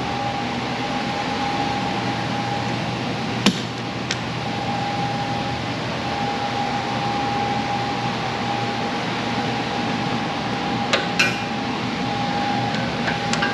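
Steady whir of workshop machinery with a constant whine, broken by a sharp knock about three and a half seconds in and a few lighter clicks near the end as a hold-down clamp is taken off the CNC table.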